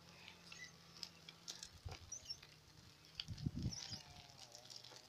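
Faint sounds of a bicycle ridden slowly on a road: scattered light clicks and rattles over a low steady hum, with a dull thump about three and a half seconds in and a few high chirps.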